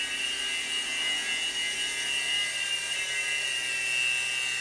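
Revell Rotobot micro RC helicopter in flight: a steady, high-pitched electric whir from its small motors and spinning rotors.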